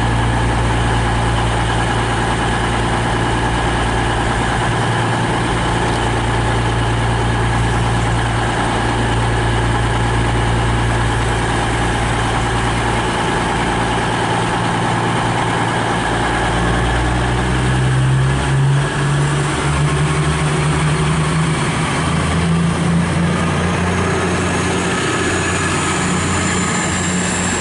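Class 222 Meridian diesel multiple unit's underfloor diesel engines running steadily at the platform, then opening up about two-thirds of the way through as the train pulls away, with the engine note stepping up in pitch. A faint high whine rises near the end.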